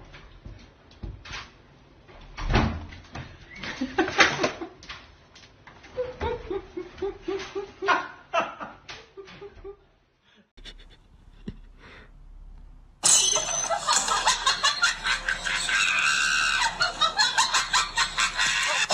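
A person laughing in repeated short bursts, over scattered clicks and knocks. About two-thirds of the way in, a much louder and fuller sound with more laughter cuts in abruptly.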